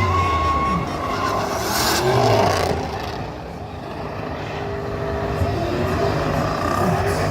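Car engine running and revving, its pitch rising and falling, loudest about two seconds in.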